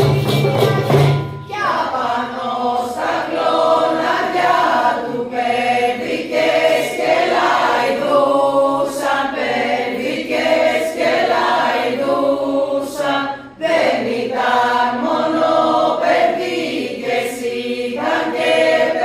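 Mixed group of voices singing an Epirot polyphonic New Year's carol (kalanda) in two parts. Frame drums play for about the first second and a half, then stop, and the voices go on alone.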